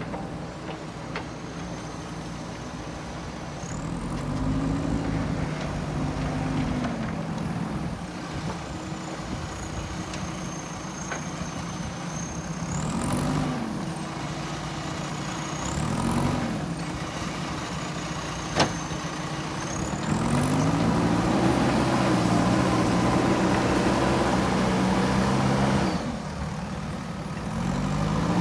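JCB 3DX backhoe loader's diesel engine working, revving up and settling again several times as it works its hydraulics, with a thin high whine rising alongside the revs. It runs louder for several seconds near the end, and there is a single sharp knock about two-thirds of the way through.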